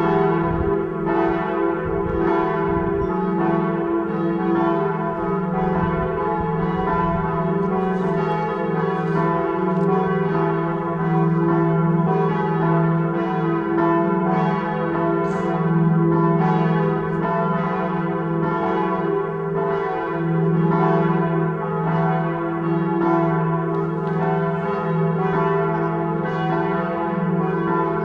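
Several church bells pealing together, their strikes overlapping in an uneven pattern about every half second while the ringing tones blend into a continuous sound.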